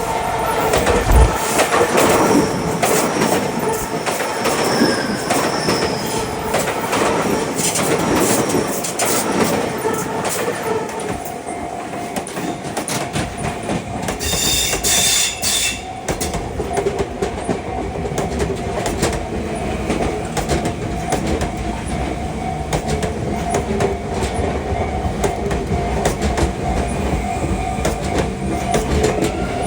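Electric commuter trains running past on the double track, their wheels clattering over rail joints, with a brief high-pitched wheel squeal about fifteen seconds in.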